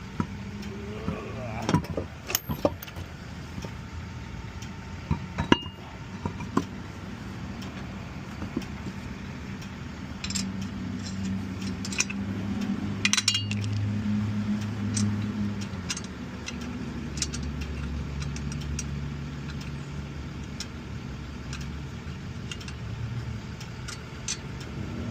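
A vehicle engine running steadily, its pitch shifting a couple of times, with scattered sharp metal clinks and knocks from tools and wheel hardware during a tire change.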